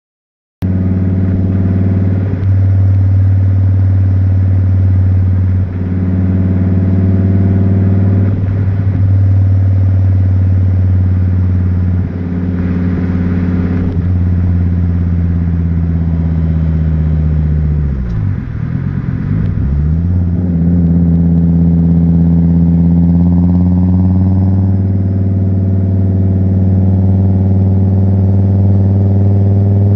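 Fiat Coupé 20V Turbo's turbocharged inline five-cylinder engine heard at the exhaust tip on the move: a steady drone at even revs with a few brief dips. Around the middle the revs drop and rise again, then climb gradually toward the end.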